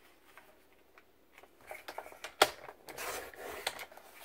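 Sliding paper trimmer cutting a strip of patterned paper: a sharp click about two and a half seconds in, then a short rasp as the blade head slides along the rail.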